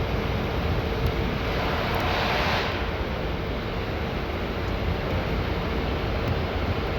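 Steady rushing background noise with a faint steady hum, swelling briefly to a louder hiss about two seconds in.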